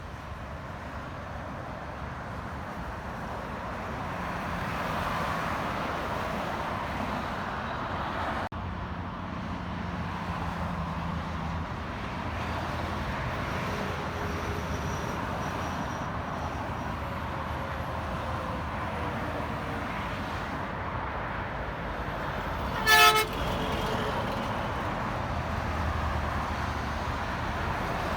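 Road traffic passing steadily, vehicles going by one after another. Near the end a vehicle horn gives one short toot, the loudest sound.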